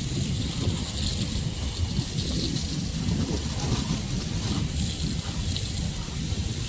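Wind buffeting the microphone, over a steady high hiss of liquid being sprayed, as when roof sealer is sprayed onto roof tiles.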